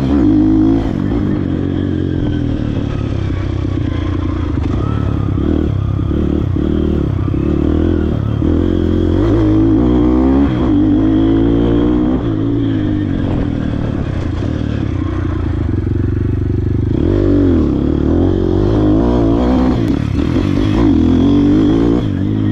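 YCF Bigy 150 MX pit bike's small single-cylinder engine being ridden hard around a motocross track, revving up and dropping back again and again through gear changes and corners, with some rattling and scraping.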